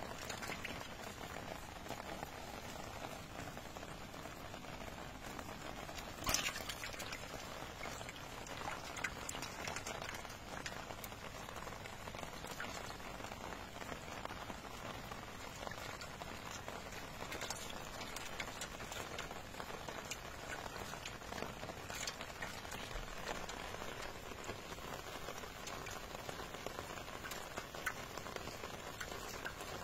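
Live fish stirring and splashing in a shallow metal basin of water over a steady hiss, with a few sharper splashes or knocks, the loudest about six seconds in.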